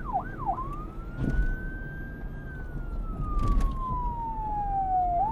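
Police car siren switching from a fast yelp to a slow wail about half a second in: the tone climbs, glides slowly down, and starts climbing again near the end, over a low rumble.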